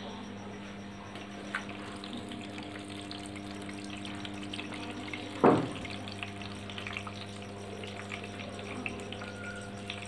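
Water running into the drum of a Whirlpool top-load washing machine as it refills, over a steady machine hum. There is a single loud knock about halfway through.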